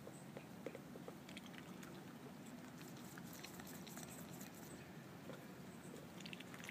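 Runner duck making faint, soft clicks and short peeps close to the microphone, with a quick cluster of peeps near the end.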